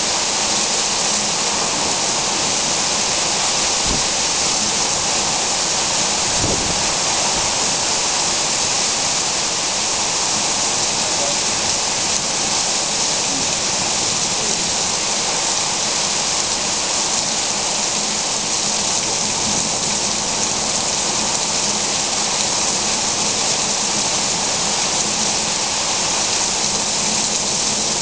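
Rain falling steadily, a dense even hiss with no break.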